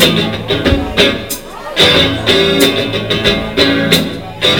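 Live blues band playing: electric guitar chords over drums keeping a steady beat.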